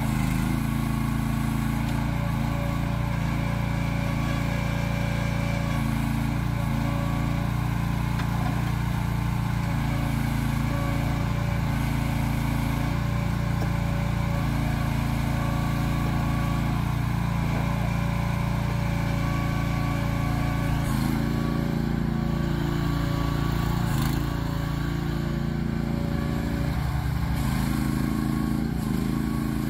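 Mini excavator's Briggs & Stratton 420cc single-cylinder gas engine running steadily as the boom, arm and bucket are worked. Its note dips in pitch and comes back up about three quarters of the way through.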